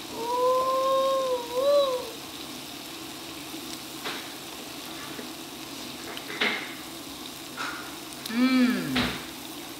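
Beef, onions and jalapeños sizzling steadily on the grill plate of a hot pot, with a few light clicks of a fork.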